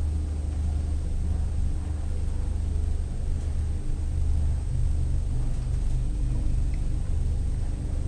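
Scenic passenger elevator car travelling upward, a steady low rumble and hum of the ride.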